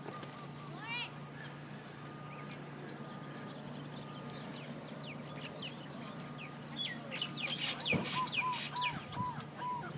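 A flock of small birds, sparrows among them, chirping in short high notes that grow busier in the second half. One rising call comes about a second in, and a run of about six evenly spaced clear notes comes near the end, over a steady low hum.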